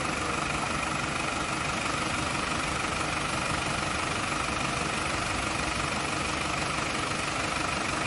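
Engine of a flood-drainage water pump running steadily: an even, unchanging engine drone with a steady whine over it.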